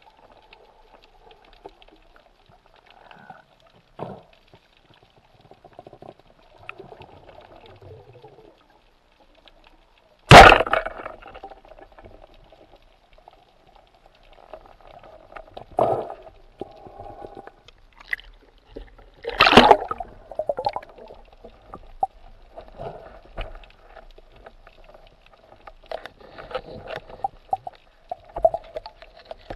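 Underwater water noise picked up by a diver's camera, broken by sharp knocks and snaps from spearfishing gear. The loudest is a single hard crack about ten seconds in, with a second strong one about nine seconds later.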